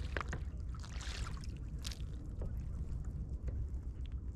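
Water slapping and trickling against a plastic kayak hull on choppy sea, with wind rumbling on the microphone and a few scattered clicks.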